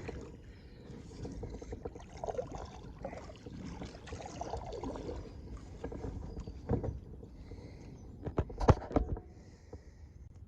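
Small fishing boat on the water: a steady low rumble of water and wind, with a knock on the hull about seven seconds in and a cluster of louder knocks near the end.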